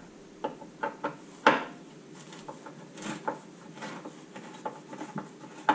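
Scattered clicks and knocks of hand tools and plastic trim being handled on a car's front end during a strip-down, the sharpest knock about one and a half seconds in.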